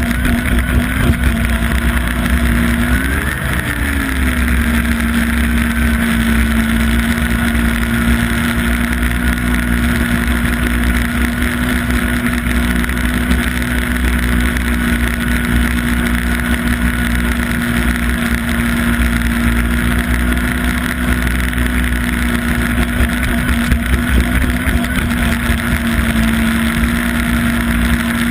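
Yamaha Apex snowmobile's four-cylinder four-stroke engine running at steady cruising speed, a single held engine note that rises briefly and drops back about three seconds in.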